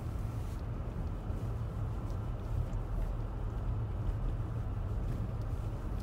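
Steady low rumble of a car driving on a snow-covered road, heard from inside the cabin: engine and tyre noise with no rise or fall.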